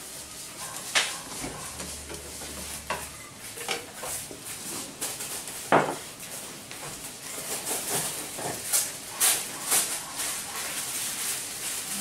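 Food sizzling in a frying pan while it is stirred with chopsticks, with sharp clinks and scrapes against the pan now and then and a quick run of them near the end.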